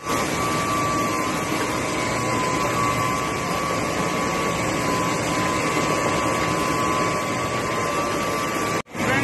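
Sugar mill machinery running: a loud, steady industrial noise with a steady whine in it, broken by a brief dropout near the end.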